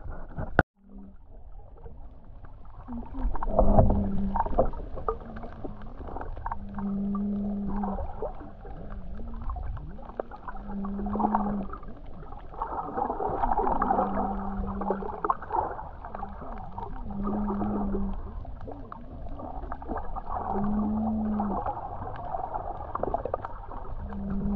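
Muffled underwater-camera sound of a snorkeler breathing through a snorkel: a short low hum about every three to four seconds, with water gurgling and sloshing around the microphone in between.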